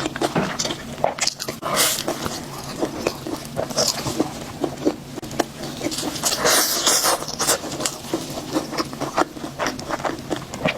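Close-miked eating of a fried chicken cutlet: a run of chewing clicks and smacks, with a few louder noisy bites about 2, 4 and 7 seconds in.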